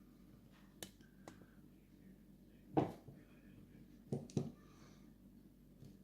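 A handful of short, sharp clicks and taps from the pins and springs of a Daz Locks Numero Uno lock being worked out of its chambers during gutting, with the loudest click about three seconds in and two close together a little after four seconds.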